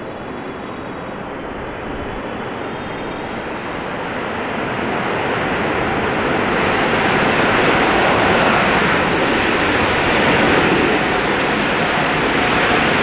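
Boeing 777 freighter's GE90 jet engines running as the airliner rolls out along the runway just after touchdown: a steady rushing roar that grows louder from about four seconds in and then holds.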